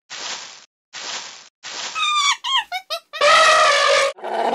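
Cartoon logo sting: three short swishes as paw prints pop up, then a run of quick squeaky toots stepping down in pitch and a loud brassy held horn note, with a falling slide near the end.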